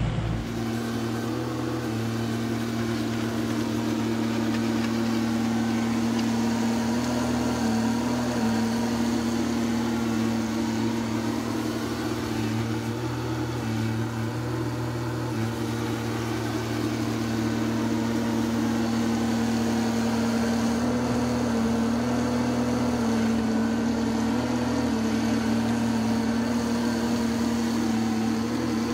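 Komatsu PC16 mini excavator's diesel engine running steadily at constant speed while the machine tracks about and pushes snow with a plow. Its note dips and recovers slightly several times as the hydraulics take load.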